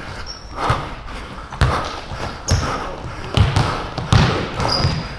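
A basketball being dribbled on a hardwood gym floor, bouncing in an uneven rhythm of roughly one bounce a second, with a few short high squeaks between the bounces.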